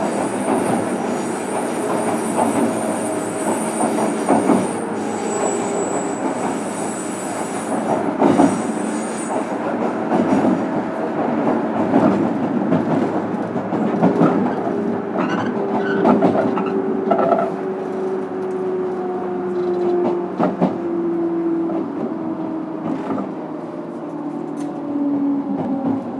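Onboard running sound of a JR Kyushu 103 series electric train, heard in motor car MoHa 102-1514: a steady rumble with scattered rail-joint clicks. From about halfway, a motor whine falls steadily in pitch as the train slows.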